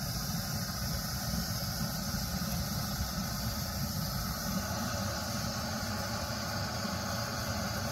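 Cheap canister gas camp stove burner lit and running wide open: a loud, steady rushing hiss with a low rumble underneath, coming on suddenly at the start. It is screaming, the flame turned up far higher than needed.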